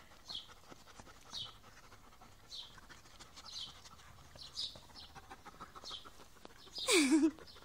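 Dogs panting softly during play, with a short breathy puff about once a second. Near the end comes a brief louder cry that falls in pitch.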